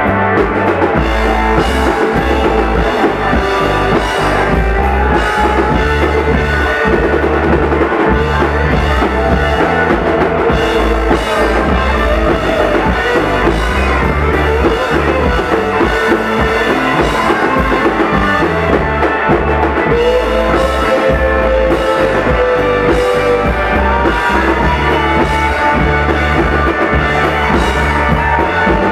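Live rock band playing loudly: electric guitars, bass and a drum kit, with held, gliding melody notes over the steady beat.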